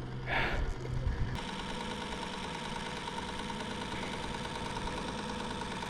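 A small motor running steadily with an even hum, its low note dropping away about a second and a half in.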